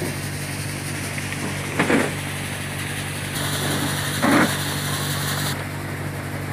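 Wheat-cleaning machine running with a steady mechanical hum. Two brief louder sounds come about two seconds apart, and a high hiss sits over the hum for a couple of seconds in the middle.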